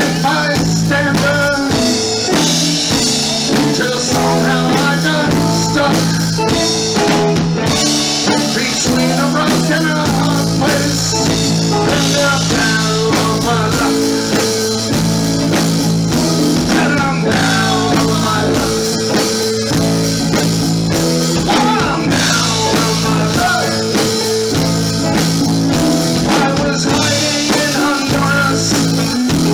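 Live rock band playing: electric guitars, electric bass, drum kit and keyboard, with melodic lines moving over a steady bass.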